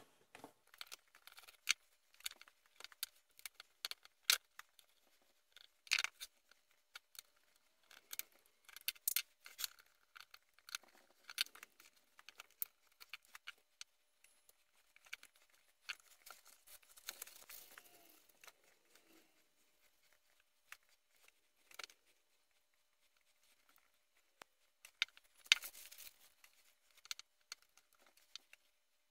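Scattered small clicks, taps and brief rustles of a screwdriver and the plastic housing parts of a Ridgid 4½-inch angle grinder being handled as the housing is taken apart.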